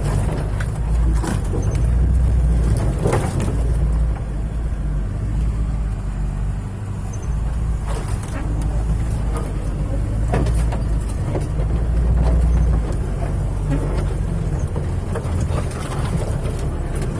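UAZ 315195 off-roader driving, its engine running as a steady low rumble with frequent knocks and rattles.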